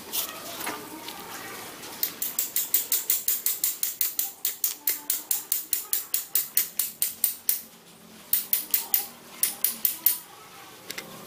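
Small hammer tapping a metal pin into the frame of a two-speed breast drill: an even run of light metal-on-metal taps, about five a second, then two shorter runs near the end.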